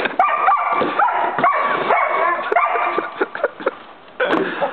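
German Shepherd puppy barking and yipping over and over in quick succession, a few calls a second, with a brief lull near the end before it starts again.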